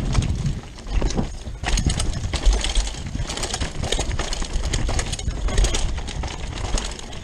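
Rockrider 540S ST mountain bike rattling down a rough dirt trail at speed: knobby tyres on dirt and roots, with the chain and frame clattering in quick, irregular knocks over a low wind rumble on the microphone.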